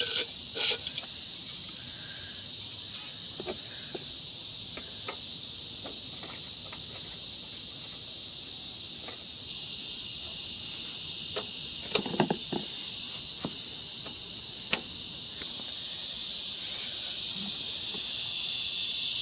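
Crickets chirring steadily and high-pitched, with scattered clicks and a few knocks of hand tools working on a lawn mower's spark plug, a small cluster of knocks about two-thirds of the way through.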